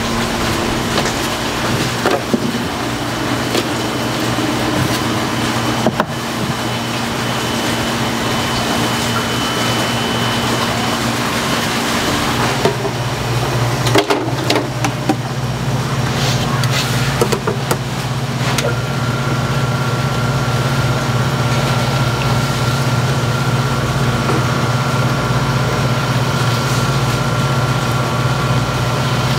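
Steady electric machine hum with a few sharp knocks. About two-thirds of the way through, a louder, steadier motor hum with a thin high whine starts: an electric slicing machine cutting squid into thin strips.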